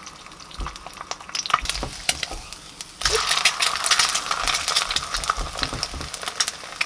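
An egg frying in oil in a nonstick pan, sizzling, with a spatula scraping and tapping against the pan. About three seconds in the egg is flipped and the sizzle suddenly gets louder.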